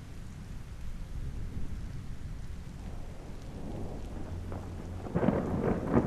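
Steady rain with a low rumble of thunder, which swells and breaks into a louder crackling peal about five seconds in.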